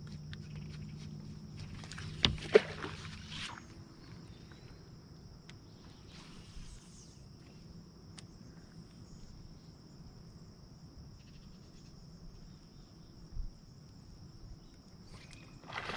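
A steady, high, thin insect drone, with a low hum under it for the first three seconds or so. Two sharp knocks a fraction of a second apart come a little over two seconds in.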